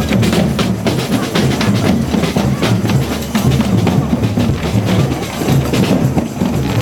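Drums and percussion playing music, with a bass drum and rapid sharp hits in a steady beat.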